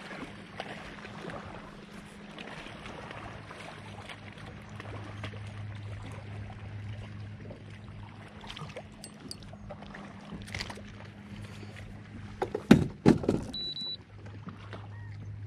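Steady low hum over light water and wind noise on a fishing kayak. Near the end, about a second's worth of loud knocks, as of gear or the angler's hands striking the kayak's hull.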